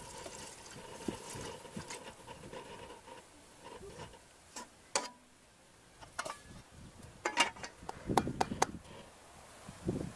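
Water pouring in a thin stream into a large aluminium pot of broth, for about the first four seconds, followed by a few sharp clicks and knocks, the loudest cluster near the end.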